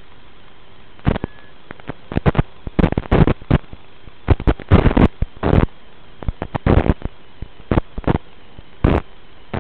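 Irregular crackling and popping bursts over a steady hiss, some single and some in quick clusters, in the audio of an FPV drone's analog video recording.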